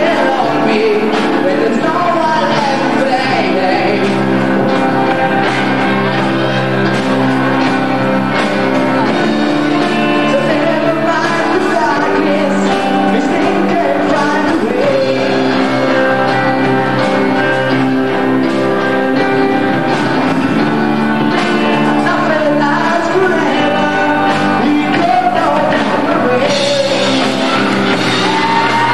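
Amateur rock band playing live: a sung lead vocal over sustained keyboard chords, bass and electric guitar.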